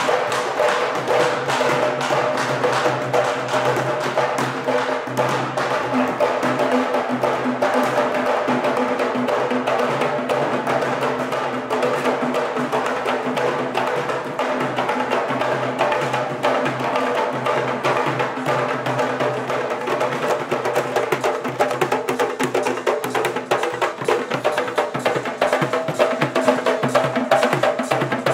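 A group of candombe drums, tall barrel drums played with a stick and a bare hand, drumming a fast, dense rhythm, with sharp wooden clicks of sticks on the drum shells.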